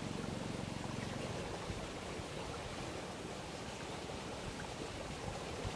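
Steady wind on the microphone: an even rushing noise with a low rumble, no distinct events.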